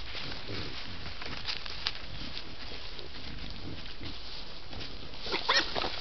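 A wild animal's short call, loudest about five and a half seconds in, over a noisy night-forest background with scattered small sounds.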